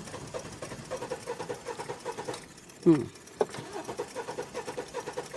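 Kia Sportage engine cranking on the starter with a fast, even rhythm but not catching: the crank-but-no-start fault. The cranking stops briefly after about two seconds, then starts again.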